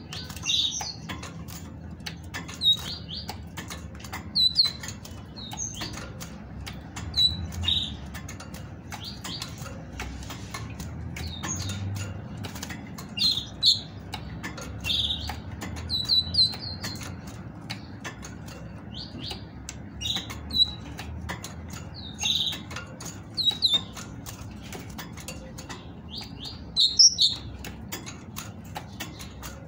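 Caged female great tit giving short, high call notes scattered through, amid fluttering wings and frequent sharp clicks as it hops and lands on the perches and wire bars. These are the calls a female gives to prompt males to sing.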